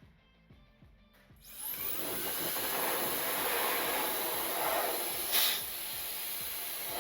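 Electric air duster switching on about a second and a half in, its motor whining up in pitch, then blowing a steady rush of air to clear dust out of a computer, with one brief stronger gust near the end.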